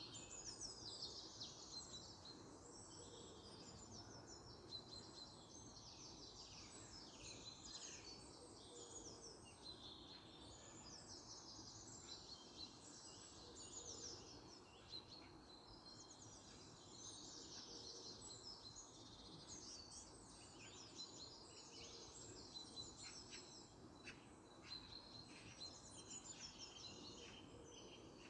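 Faint birdsong: several small birds chirping and trilling over one another, over a steady low background rumble.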